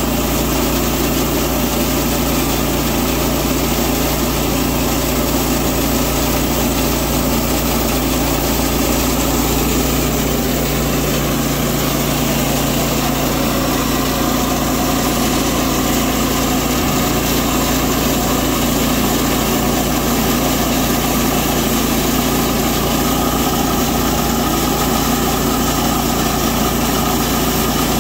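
Portable bandsaw sawmill's engine running steadily under load as its band blade saws along a log, cutting off a board.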